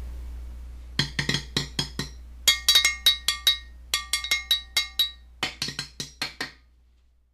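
A quick, uneven run of about twenty sharp percussive strikes, some dry like a wood block and some with a short bright ring like struck glass or metal. They stop about a second before the end, over a steady low hum.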